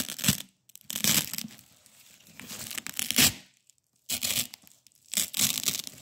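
Black adhesive-backed hook-and-loop (Velcro) tape being ripped apart by hand in about five separate tears, each a crackling crunch, the longest about two seconds in and loudest at its end.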